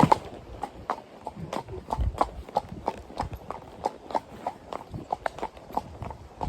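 Standardbred horse walking on a road, its hooves clip-clopping in a steady rhythm of about three strikes a second.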